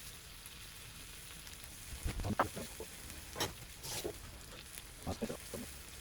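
Chicken thigh frying skin-side down over a low solid-fuel flame: a faint steady sizzle, broken by short clusters of louder pops and knocks about two seconds in, around three and a half to four seconds, and about five seconds in.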